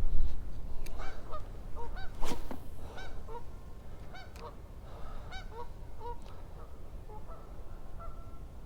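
A flock of geese honking: many short calls overlapping, louder in the first few seconds, over a low steady rumble.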